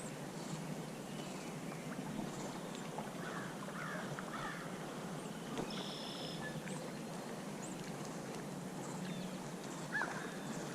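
Steady outdoor river ambience with the faint rush of moving water, and a few short bird calls, one near the middle and a brief rising call near the end.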